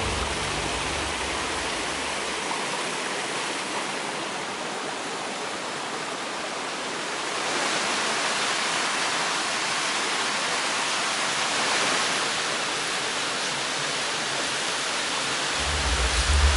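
Small gorge waterfall rushing steadily: an even noise of falling water. A low rumble sits under it in the first couple of seconds and returns near the end.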